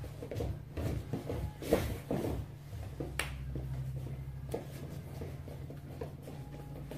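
Thuds, scuffs and rustles from two people stepping and grappling barefoot or in soft shoes on foam floor mats, with hands and bodies meeting and clothes brushing. There are a few sharper knocks in the first half, over a steady low hum.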